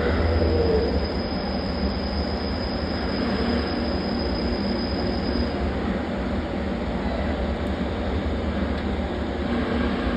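Lathe running with its spindle turning a faceplate at steady speed, a continuous machine rumble with a thin high whine that fades out about halfway through.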